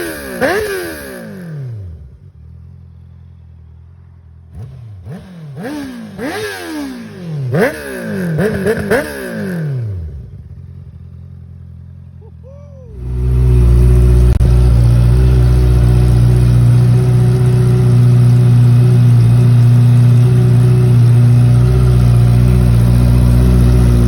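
Honda CBR650R's inline-four through a full titanium Akrapovic racing exhaust, revved in a string of quick blips that each climb and drop back to a quieter idle. About halfway it changes to a loud, steady engine note held at constant revs.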